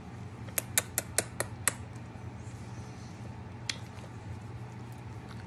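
A cockapoo licking a person's arm: a quick run of about six short wet clicks in just over a second, then one more about two seconds later, over a steady low hum.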